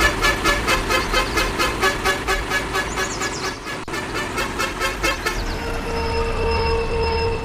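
A fast, even train of pulsing pitched tones at about four a second, stopping about five seconds in. Then a vehicle horn sounds one steady note for about two seconds.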